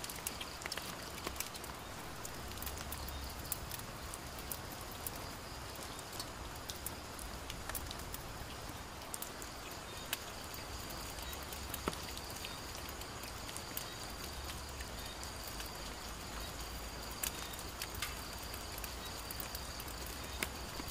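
Night-time outdoor ambience: insects keep up a steady high trill, and a wood fire crackles with scattered sharp clicks.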